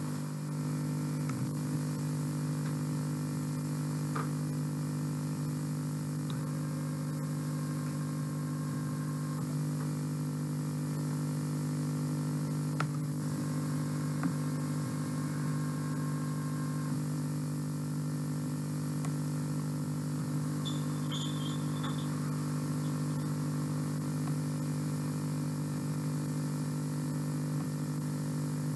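Steady electrical hum with a ladder of overtones on an old home-video tape's sound track, unchanged through the scene changes, with a few faint clicks.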